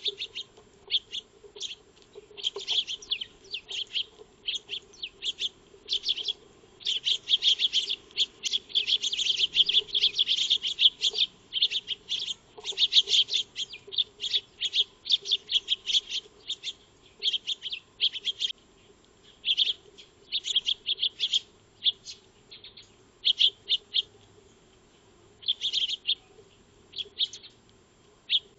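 A flock of Eurasian tree sparrows chirping: many short chirps overlapping in quick runs, busiest through the middle, thinning to scattered chirps near the end.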